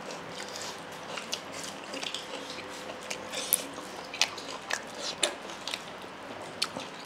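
Close-up eating sounds: duck meat being bitten and chewed, heard as irregular small clicks, smacks and crunches.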